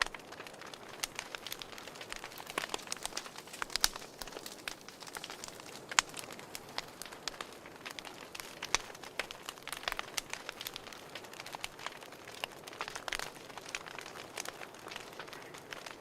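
Wood fire crackling in a fireplace: irregular sharp pops and snaps over a soft steady hiss.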